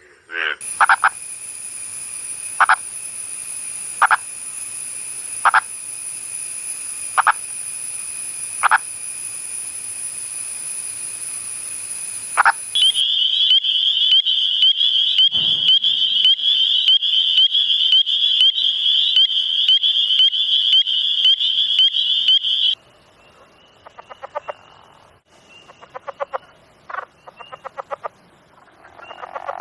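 Frog calls from several recordings in turn: first a steady high drone with a short loud call about every one and a half seconds, then, about 13 seconds in, a continuous fast-pulsing trill from a small frog calling with its vocal sac blown up. About 23 seconds in it changes to quieter, short pulsed calls.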